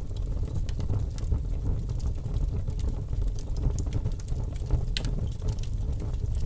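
Large wood fire burning: a steady low rumble of flames with frequent small, irregular crackles and pops from the burning wood.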